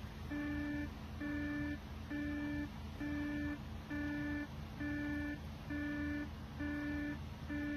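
An electronic alarm beeping steadily, a short buzzy tone repeating a little faster than once a second.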